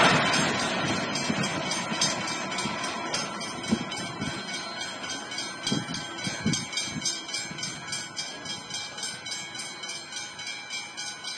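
Container freight train's wagons running away over the tracks, the noise fading after the last wagon clears the crossing, while the level-crossing bells keep ringing in a quick steady rhythm. A few low thumps come about four to seven seconds in.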